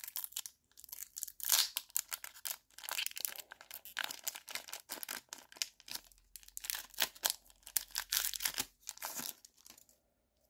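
Foil Pokémon TCG booster pack crinkling and crackling in the hands as it is torn open and its wrapper worked off the cards; the crackling stops near the end as the cards come out.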